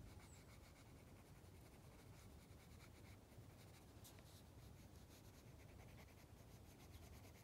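Faint scratching of a pencil on sketchbook paper, rapid short strokes as a dark shadow is shaded in.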